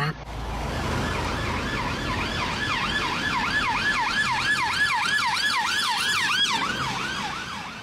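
Police car's electronic siren in a fast yelp, its pitch rising and falling about three times a second, fading near the end.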